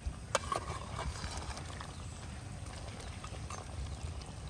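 A few light knocks and clicks in the first second or so, over a steady low rumble.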